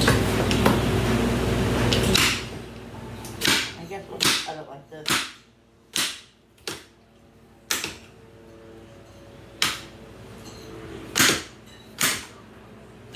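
Kitchen knife chopping through an apple onto a cutting board: about nine separate sharp knocks, unevenly spaced, roughly one a second. A steady rushing noise fills the first two seconds and cuts off suddenly.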